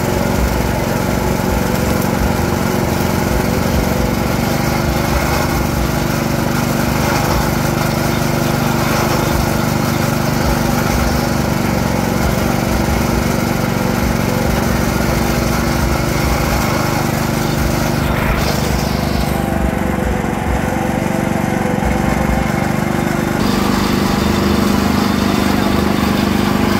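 Motorized sugarcane juice press running with a steady hum while its ribbed steel rollers crush cane stalks. The hum shifts slightly about three-quarters of the way through.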